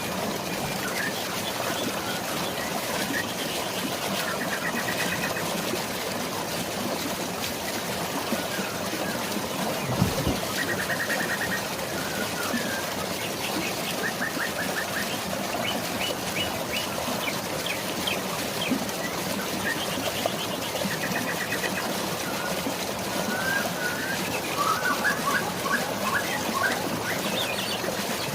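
Steady flowing water with birds chirping and giving short rapid trills over it, several times through the stretch, busiest near the end. A single low thump about ten seconds in.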